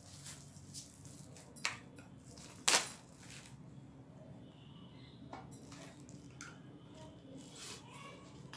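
Plastic packaging being handled: a plastic wrapper crinkling and rustling as it is pulled off a clear plastic container, with two sharp plastic clacks, the louder about two and a half seconds in.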